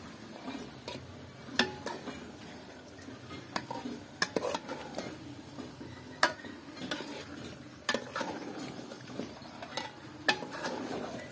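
Long metal spoon stirring beef curry in an aluminium pot, scraping through the meat and clinking sharply against the pot's side every second or two, over a light sizzle of the meat frying.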